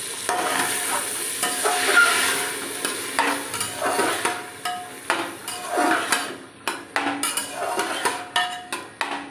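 A spatula stirring and scraping chopped vegetables around a pressure cooker, in repeated strokes with a faint metallic ring, over a light sizzle of the vegetables frying in oil.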